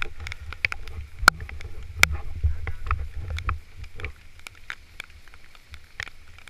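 Wind rumbling on the microphone, with scattered sharp ticks and knocks, the loudest about a second and two seconds in.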